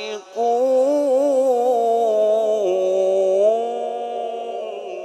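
A man's voice in melodic Qur'an recitation (tilawat), holding one long ornamented note that wavers up and down for about four seconds and fades near the end, drawing out the close of a verse.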